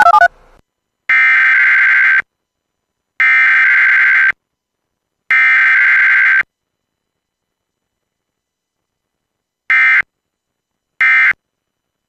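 Emergency Alert System SAME digital data bursts, the screeching two-tone modem signal of an EAS alert: three header bursts of about a second each, a few seconds of silence, then two short end-of-message bursts near the end. No attention tone sounds, as in a Required Weekly Test.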